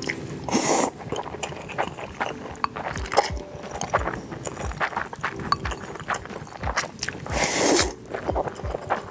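Close-miked eating of noodles: two long wet slurps, one about half a second in and one near the end, with wet chewing and small clicks in between.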